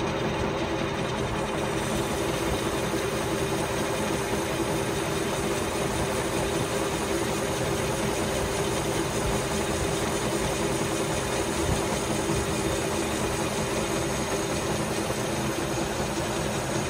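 Manual metal lathe running steadily with a constant hum, turning a Duramax LB7 piston in its four-jaw chuck while the cutting tool works at the piston's face.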